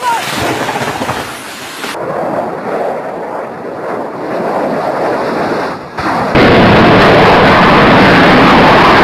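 Rough rumbling noise for the first few seconds, then about six seconds in a very loud, steady, distorted roar of a fighter jet's engines on afterburner.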